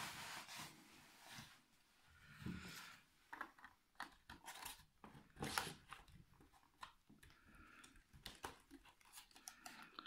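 Faint handling noise of a plastic toy robot being lifted, fitted and turned over: scattered light clicks, knocks and brief scrapes, with the sharpest knock about five and a half seconds in.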